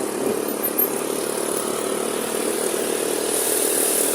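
Steady vehicle engine and road noise from moving traffic: an even hum with a hiss over it and no horn sounding.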